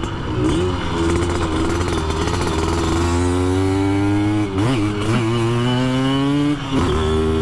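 Simson S51 moped's two-stroke single-cylinder engine, a 70 cc build with a sports exhaust, running hard under way. Its note climbs slowly, with a brief break in the middle and another near the end as gears are changed.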